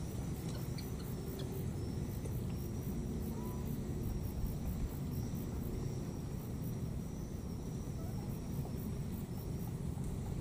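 Steady low rumble, like a distant motor, under insects chirping in a fast pulsing rhythm with a high, broken buzzing trill.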